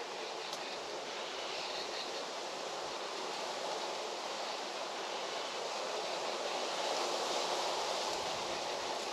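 Steady rushing noise, a little louder about seven seconds in.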